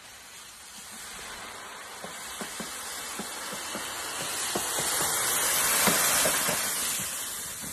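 Deep dry leaf litter rustling and crackling as a mountain bike ploughs through it, a steady hiss full of small crackles that grows louder as the rider comes closer, loudest about six seconds in, then easing.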